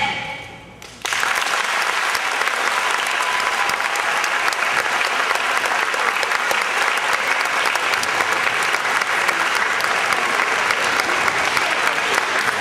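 An audience of schoolchildren applauding, bursting in suddenly about a second in as the last notes of the music fade, then holding steady.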